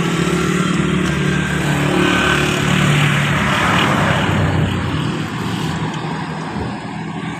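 Diesel engine of a Belarus 520 tractor converted into a road grader, running steadily; it grows a little louder a few seconds in, then fades toward the end.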